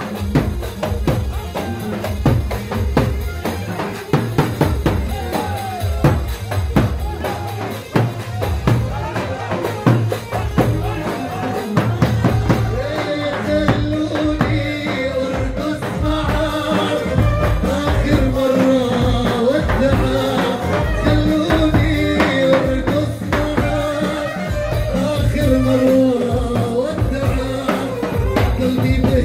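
Live Arabic dabke music: a hand-played riq and drums keep a steady beat, and a held melody comes in about halfway through.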